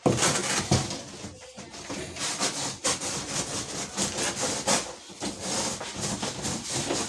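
Cardboard carton of a washing machine being cut open: a blade sawing and rasping through the cardboard in rough, irregular repeated strokes.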